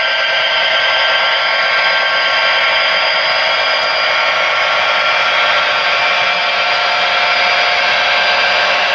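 HO scale freight cars rolling past on model railroad track, a steady whirring hiss of small metal wheels on rail with several constant tones in it.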